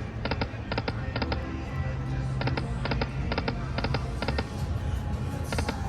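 Lightning Link Sahara Gold video slot machine spinning: its electronic game music with a low sustained tone, and quick paired clicks repeating about twice a second as the reels play out.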